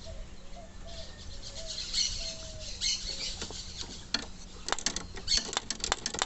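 Loose riveted metal parts of a car seat's adjustment mechanism clicking and rattling as they are worked by hand, a sign of play in the worn rivets. The clicks come thick in the last couple of seconds, and faint bird chirps sound in the first half.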